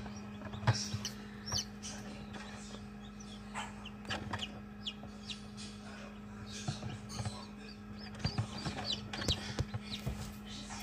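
Just-hatched Wyandotte chick peeping in short, scattered high calls, with a few brief taps and knocks. A steady low hum from the incubator runs underneath.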